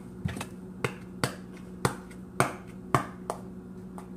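Slime being squeezed and poked by hand, giving sharp popping clicks about every half second, seven or eight in all, over a steady low hum.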